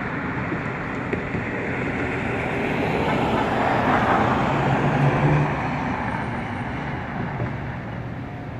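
Steady road traffic noise that swells in the middle as a vehicle goes by, then eases off.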